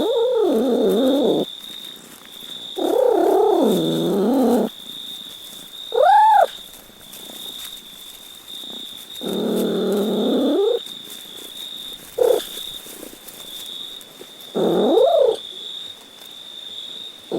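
A cat meowing and yowling in about six drawn-out calls a few seconds apart, each rising and falling in pitch, the third a short high arching meow. A faint steady high whine runs underneath throughout.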